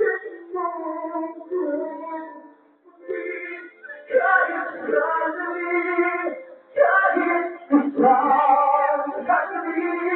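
A voice singing into a microphone, holding long notes with vibrato, with a short break between phrases nearly three seconds in.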